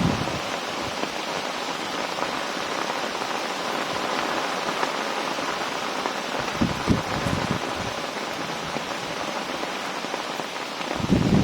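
Steady rain, an even hiss, with brief gusts of wind buffeting the microphone about two-thirds of the way through.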